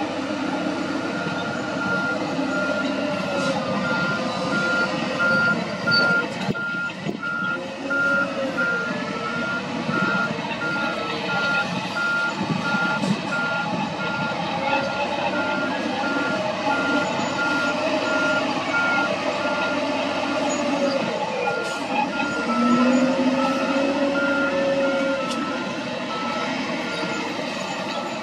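A heavy-equipment reversing alarm beeping in an even rhythm over a working diesel engine. The engine pitch rises and falls as the SDLG wheel loader manoeuvres.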